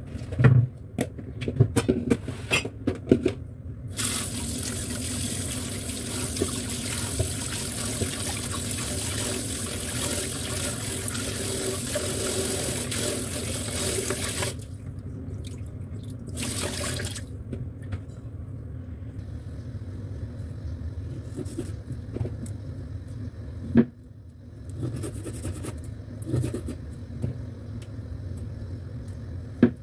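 Kitchen tap running into a sink as pieces of boiled beef are rinsed in cold water. The water starts about four seconds in and runs steadily for about ten seconds, with a short second run a couple of seconds later. Knocks and clatter of handling come before and after.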